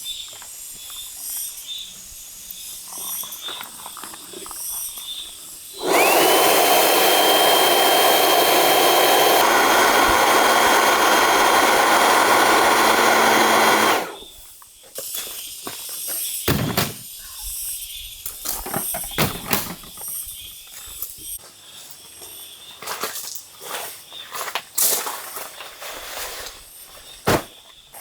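A small electric air pump runs for about eight seconds, its whine rising quickly as the motor spins up, then holding steady before it stops suddenly. Scattered knocks and handling clicks come before and after it.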